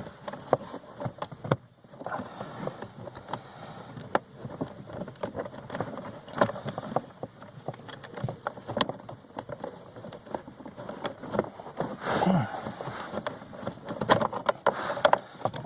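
Scattered clicks, knocks and rustling of plastic wiring clips and a wire harness being handled and pulled loose under a car's dashboard.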